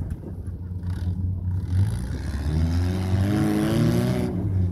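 Rock-crawling buggy's engine revving up under load as it climbs a boulder, its pitch rising and wavering. A rush of hiss and clatter from the tyres working on the rock comes in about a second and a half in and cuts off sharply near the end.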